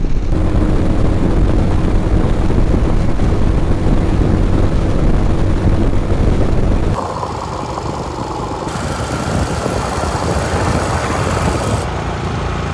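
Royal Enfield Himalayan single-cylinder motorcycle riding at highway speed: steady engine rumble mixed with wind and road noise. About seven seconds in, the deep rumble drops away and the sound turns thinner and hissier.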